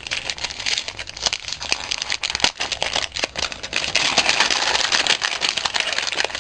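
Wrapped packaging crinkling and rustling in the hands as a small gift is unwrapped, a dense run of crackles that grows louder about two-thirds of the way through.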